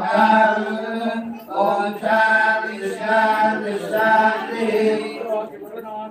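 Mantra chanting: voices intoning on a near-steady pitch in short phrases, with brief breaks between them.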